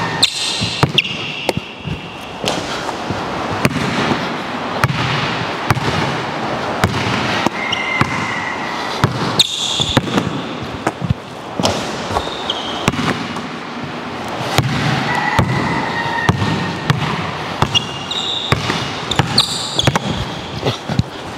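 Basketball dribbled hard and fast on a wooden gym floor in a crossover swing-step drill, each bounce ringing in the big hall. Short squeaks from sneakers on the court come in among the bounces.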